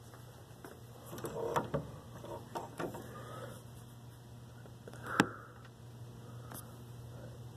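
A few short clicks and knocks at a wooden classroom door with a glass window, a cluster of them in the first few seconds and one sharp click about five seconds in, over a steady low hum.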